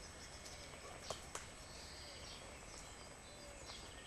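Faint outdoor ambience with birds chirping here and there among the trees, and two soft clicks a little over a second in.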